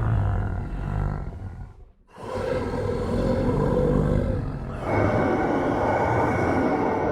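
Halloween monster-roar sound effects: a low rumbling roar fades out about two seconds in, then a new growling roar starts and grows fuller near five seconds.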